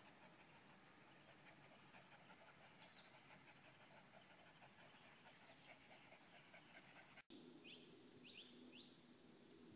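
Faint open-air ambience with a soft, rapid, even ticking through most of it. After an abrupt cut about seven seconds in, a bird gives several short, quick chirps.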